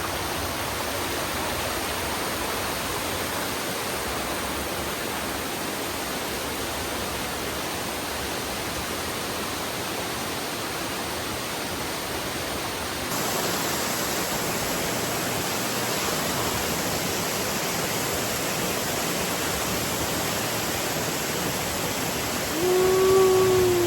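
Steady rush of fast-flowing mountain water, which grows louder and brighter about halfway through. Near the end a short pitched sound, about a second long, stands out above it.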